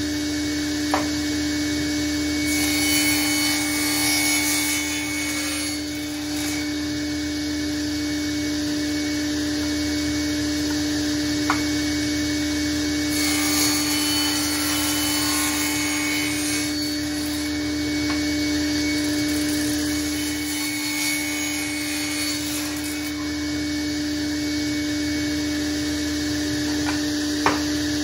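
Table saw running at a steady hum, cutting through a glued-up panel of wood strips on its sliding table: two longer cuts, one a few seconds in and one about halfway through. Three sharp knocks as cut pieces are set down.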